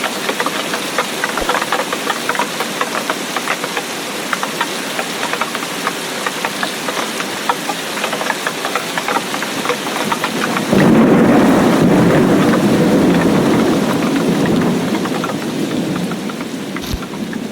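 Heavy rain falling steadily, with many individual drop ticks. About ten seconds in, a sudden thunderclap breaks in and rumbles on, slowly fading toward the end.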